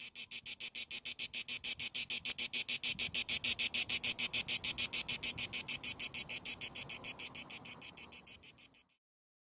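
Cicada song: a fast, even train of high, buzzy pulses, about six a second. It swells to its loudest midway, then fades and stops shortly before the end.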